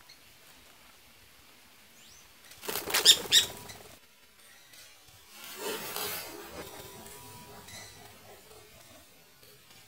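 Campo troupial (corrupião) flapping its wings on a bamboo bird trap: a short burst of wingbeats about three seconds in, then a longer flurry from about five and a half seconds in that fades away. The longer flurry is the bird fluttering as the trap closes on it.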